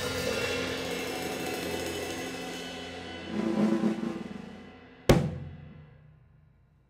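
Live band of drum kit and electric keyboard ending a song: the last chord and cymbals ring out and fade, a single sharp final hit comes about five seconds in, then the sound dies away to near silence.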